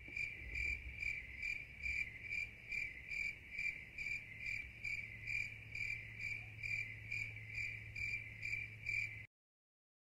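Cricket chirping steadily, about two to three high chirps a second, until the sound cuts off suddenly near the end.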